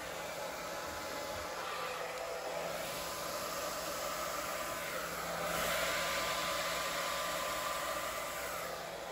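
Handheld hair dryer running on a low setting: a steady rush of air with a faint motor hum as it blows wet acrylic paint across a canvas. The air grows louder for a couple of seconds a little past the middle, then eases back.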